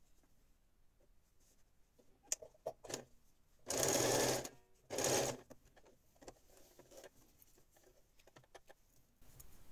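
Small domestic electric sewing machine stitching in two short runs: one about a second long, then a shorter one half a second later. Light clicks and taps come before and after.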